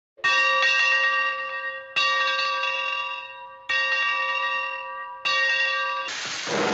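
A bell struck four times, about every second and a half to two seconds, each stroke ringing with several overtones and dying away before the next. Near the end a loud hiss starts.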